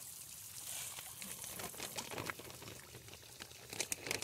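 Water sloshing and trickling inside a thin plastic fish-shipping bag as it is pulled open, with the plastic crinkling in sharp crackles that grow busier near the end.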